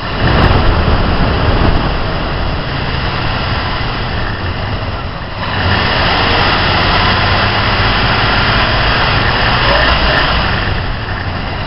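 AMC 360 V8 engine revved off idle: a short rise right at the start, easing back, then held at higher revs for about five seconds before dropping back toward idle.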